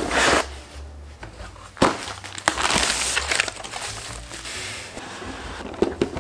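A cardboard shipping box being torn open by hand along its pull-to-open strip, then packing paper and bubble wrap crinkling as the contents are pulled out. The crinkling is loudest in a stretch of about a second, a little before the middle, then quieter rustling follows.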